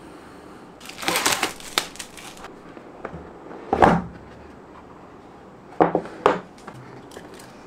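Plastic shrink wrap crinkling as it is cut and pulled off a cardboard phone box, then the box being handled: one thump nearly four seconds in and two quick knocks about six seconds in as the lid comes off and is set down.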